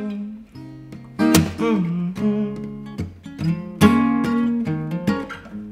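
Acoustic guitar strumming chords in a country song, an instrumental stretch with no voice: strokes come in uneven groups, some notes left ringing between them.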